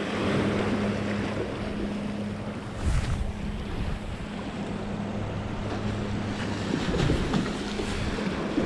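Small waves washing and splashing against a rock jetty, with wind buffeting the microphone and a low steady hum underneath.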